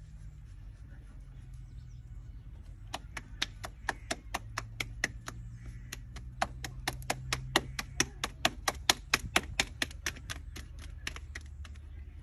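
A fast run of sharp taps or knocks, about four a second, that starts a few seconds in and stops near the end, over a steady low hum.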